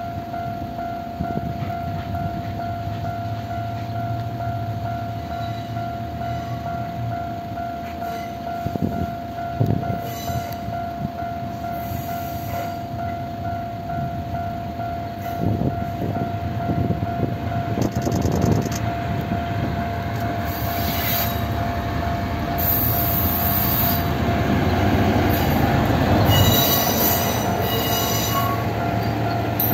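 Echigo Tokimeki Railway Setsugekka resort diesel railcar set creeping along during a shunting move, its engine and running rumble growing as it draws near. Short bursts of high-pitched wheel squeal come more often in the second half. A steady level-crossing alarm rings underneath.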